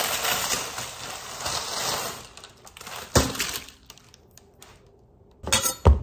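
Paper bag crinkling as a loaf of bread is pulled out of it, then a click and, near the end, a few sharp knocks on the wooden cutting board as the loaf and chef's knife are handled.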